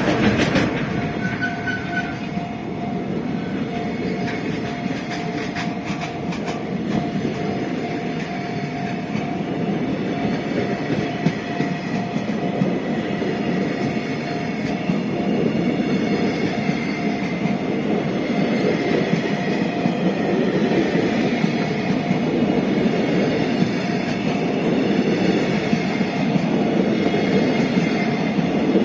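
Freight train rolling past a level crossing: a long, steady run of wagon wheels rumbling on the rails.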